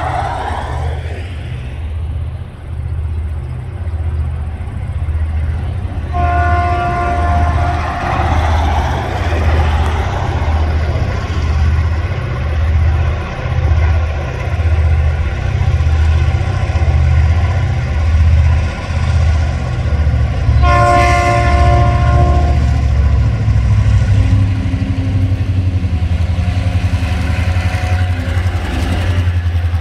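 Two TasRail diesel locomotives hauling a coal train: a deep, pulsing engine throb that grows louder as they approach and pass close by, with the wagons following. The multi-tone air horn sounds twice for the level crossing, a short blast about six seconds in and a longer one of about two seconds about twenty-one seconds in.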